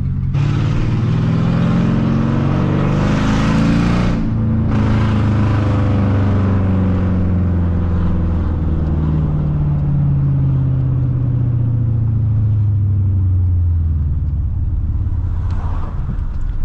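Mercedes-Benz W210 E55 AMG's 5.4-litre V8 accelerating, its pitch rising for several seconds, dropping briefly about four seconds in as it shifts up, then rising again and settling into a steady run that slowly eases off near the end.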